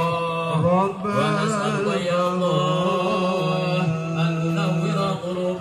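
Islamic devotional chanting: a melodic prayer sung in Arabic, with long wavering held notes, carried over a public-address system.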